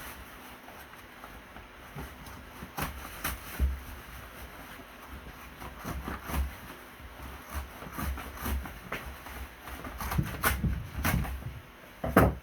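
Irregular small clicks, knocks and rustles of close-up handling work. They grow busier in the last couple of seconds, with a sharper knock near the end.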